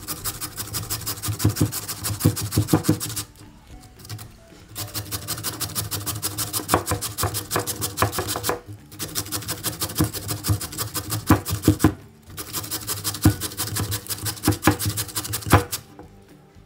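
Raw potato grated on a handheld stainless-steel grater into a bowl: rapid rasping strokes in four runs of a few seconds, with short pauses between.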